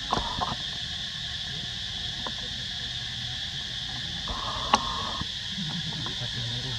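Steady chorus of forest insects, a continuous high buzzing hum, with a few faint clicks and rustles, and one sharp click about two-thirds of the way through.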